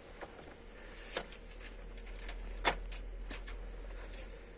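Card stock being slid and lined up on a paper trimmer: a few faint clicks and taps, two of them a little sharper, over a low steady hum.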